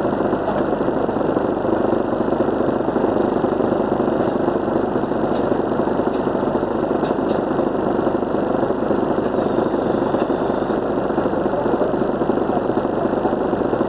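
City bus's diesel engine idling steadily while the bus stands still, heard from on board. A few faint ticks come through in the middle.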